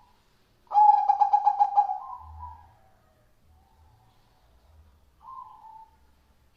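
Zebra dove (perkutut) cooing: about a second in comes a loud, quick pulsing run of coo notes that trails off, and a shorter coo follows near the end.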